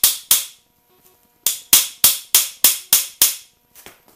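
Hammer blows on the steel driver bar of a cam bearing installer, driving a cam bearing into the cam bore of a Ford 400 V8 engine block. Two sharp metallic strikes, a pause of about a second, then a run of seven strikes about three a second.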